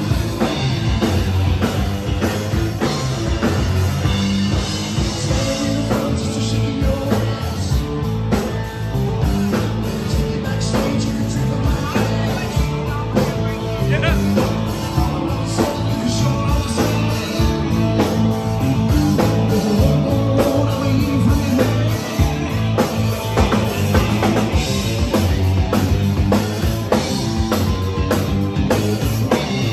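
Live rock band playing through amplifiers, heard from in the room: drum kit keeping a steady beat, electric guitar and bass guitar, with a singer.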